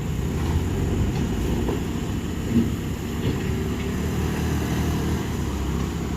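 Heavy vehicle engine running steadily at low revs with a deep, even hum.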